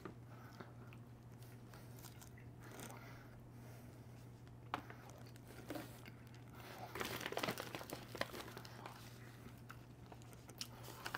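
Faint mouth sounds of someone biting and chewing baked snack food, with a few louder bites about seven to eight seconds in, over a steady low hum.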